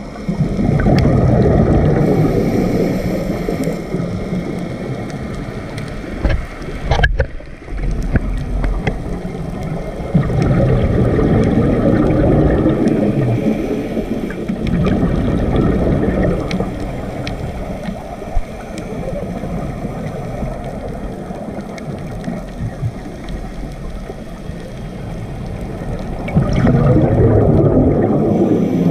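Scuba regulator heard underwater: bursts of bubbling, rushing exhalation that swell and fade every several seconds, with a few sharp clicks between.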